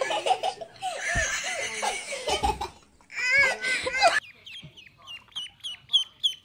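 A young child laughing and squealing. About four seconds in, ducklings start peeping: short, high, falling chirps at about four a second.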